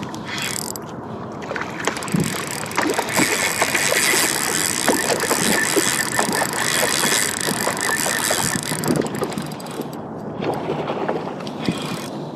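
Rushing wind and sea noise on a small fishing boat, louder through the middle and easing off near the end, with scattered sharp knocks and clicks throughout.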